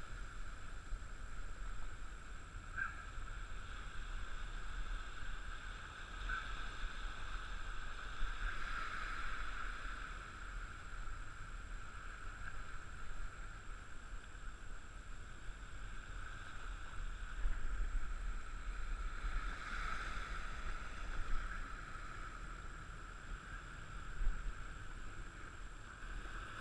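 Wind rumbling on a head-mounted action camera's microphone over open water, with a steady faint high hum underneath.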